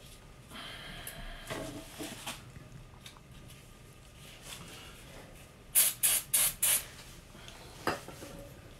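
Aerosol spray can fired in four quick short hisses a little under six seconds in, sprayed at an engine main bearing cap. Light clicks and knocks from handling the cap come before and after.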